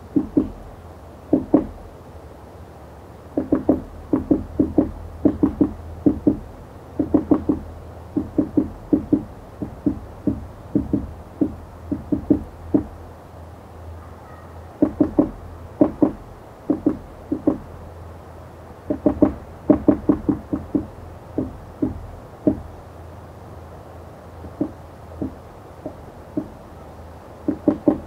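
A woodpecker pecking at wood: sharp taps in irregular clusters of a few quick strokes, with short pauses between clusters, over a steady low rumble.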